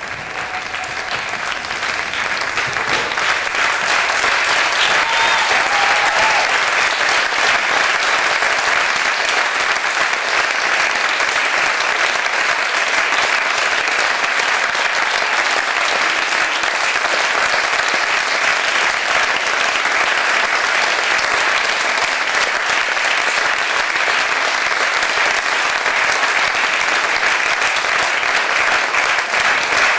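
Theatre audience applauding, swelling over the first few seconds and then holding steady.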